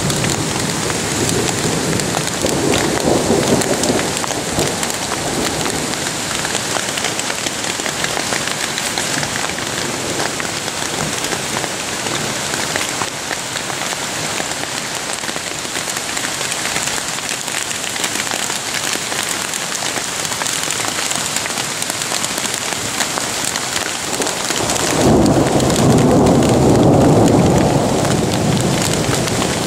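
Hail pelting a tent, heard from inside: a dense, steady patter of many small hits. It swells louder and fuller for a few seconds near the end.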